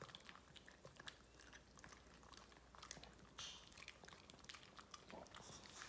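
Two shih tzus licking soft food off a spoon and smacking their lips: faint, scattered wet clicks and smacks.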